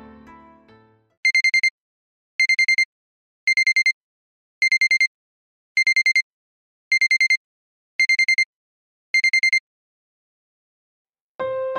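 Smartphone timer alarm beeping: eight quick groups of about four high beeps, roughly one group a second, signalling that the three minutes for a cup of instant noodles are up.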